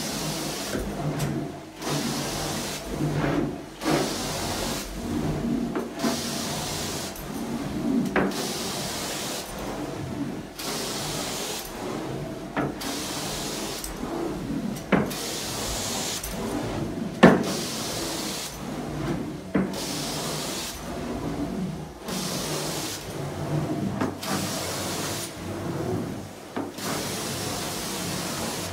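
Hot-water carpet extraction wand drawn across carpet in repeated strokes, its spray and suction hissing and easing off every second or two over the steady hum of the machine's vacuum motors. There are a few sharp clicks along the way.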